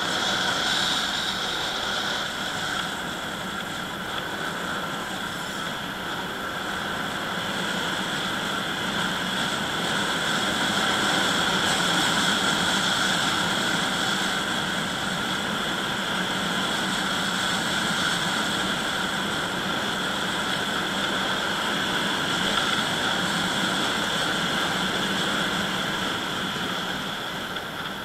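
Vehicle engine running steadily with wind and road noise as the vehicle drives along, swelling a little after the first few seconds and then holding even.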